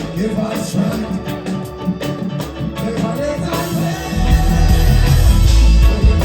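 Live reggae band playing with singing over it; the heavy bass drops out and comes back in about four seconds in.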